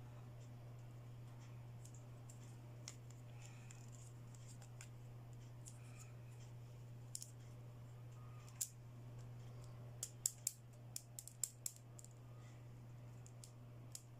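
Faint small clicks and snips of plastic toy accessories and packaging being handled and cut, with a quick run of sharp clicks about ten seconds in, over a steady low hum.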